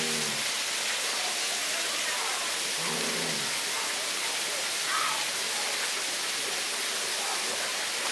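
Steady rushing hiss of outdoor background noise, with faint distant voices about three and five seconds in.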